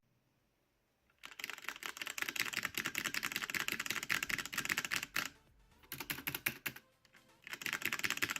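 Fast typing on a HyperX Alloy FPS Pro tenkeyless mechanical keyboard with Cherry MX Red linear switches, a dense run of rapid key clacks. It starts about a second in and is followed by two shorter bursts after brief pauses.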